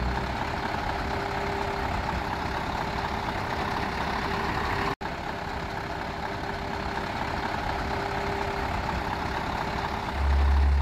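Scania V8 diesel truck engine idling steadily, with a brief break in the sound about five seconds in.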